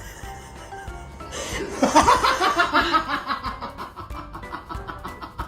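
A person laughing in a quick run of repeated bursts that starts about two seconds in and trails off, over background music.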